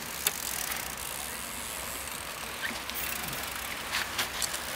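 Mountain bikes riding past close by on a dirt forest trail: tyres rolling over the ground with a steady hiss, broken by a few sharp clicks and rattles from the bikes.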